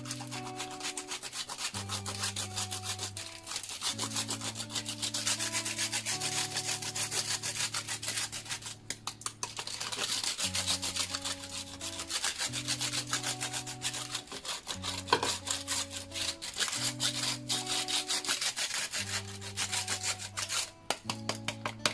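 Peppermint chocolate being grated: rapid, continuous rasping strokes, with soft background music of held notes underneath.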